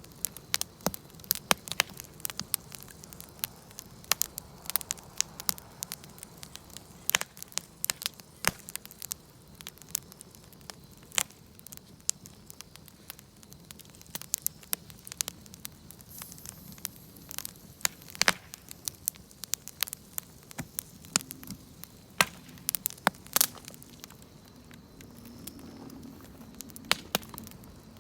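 Wood fire crackling, with irregular sharp pops and snaps, several a second, over a low steady rush.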